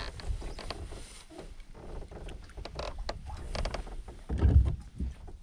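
Scattered light clicks and taps of fishing gear being handled on a boat deck, with a brief low thud about four and a half seconds in.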